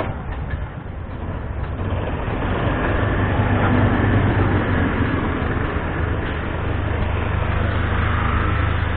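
Engine of an antique tractor running at low speed, a steady low drone that grows louder about two to four seconds in and then holds steady.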